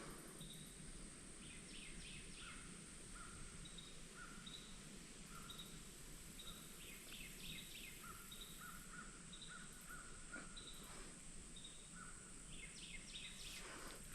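Faint woodland ambience with scattered bird calls: short repeated notes and a few quick clusters of chirps over a steady high hiss.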